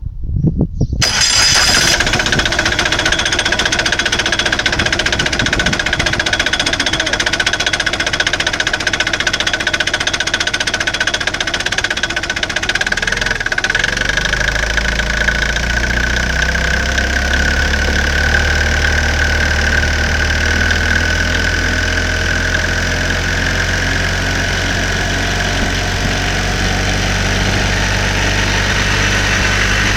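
Microcar Virgo 3 microcar engine starting about a second in and running steadily, with a steady high metallic whine over the low engine note, which grows heavier from about 13 seconds on. It is plausibly the loud scrap-metal, circular-saw-like noise the owner has heard from the variator (CVT) drive since fitting a new original belt.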